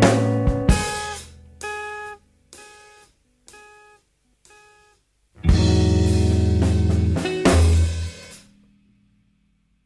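Instrumental math rock: electric guitar and drum kit in a stop-start passage. A chord rings out and dies, then single guitar chords repeat about once a second, each quieter. About halfway in the full band crashes back in for two loud hits, then falls away to silence near the end.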